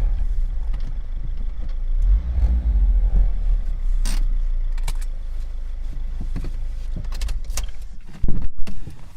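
Honda Civic Type R EP3's 2.0-litre four-cylinder engine idling with a low rumble and a short rev blip about two seconds in, followed by several sharp clicks. A loud thump near the end, after which the engine sound drops away.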